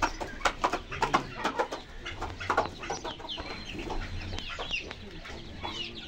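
Caged aviary birds calling: many short, rapid calls, busiest over the first three seconds, with a few gliding chirps after that.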